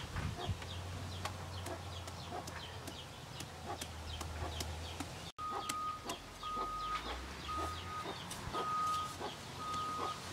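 Large knife blade chopping rapidly into a hand-held peeled green papaya, a run of light sharp taps as it cuts lengthwise grooves before shredding. From about halfway, a steady high note repeats about once a second in the background, an animal calling.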